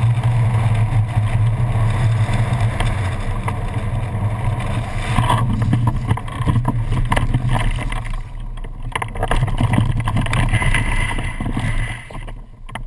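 Wind rushing over the camera on a hang glider in its final glide, a steady low rumble. About five seconds in, as the glider touches down, it gives way to uneven rustling and short knocks while the glider is walked through grass.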